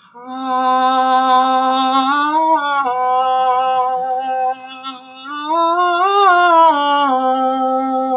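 A woman's voice singing a vocal exercise on an open vowel: long held tones around middle C that twice glide up a few notes and back down, in two phrases.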